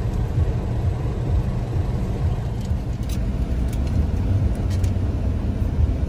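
Steady low rumble of a car heard from inside its cabin, with a few faint clicks.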